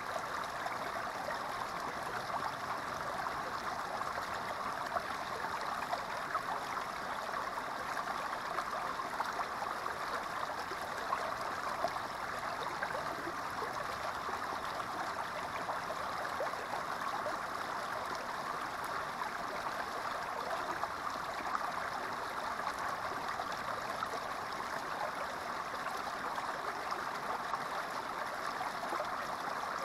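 Small creek pouring over a low rock ledge into a shallow pool: a steady splashing and trickling of running water.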